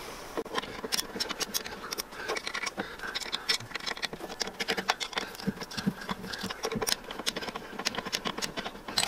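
Irregular small clicks, taps and rattles of metal as the lathe's DC motor is handled and worked loose from its mounting plate.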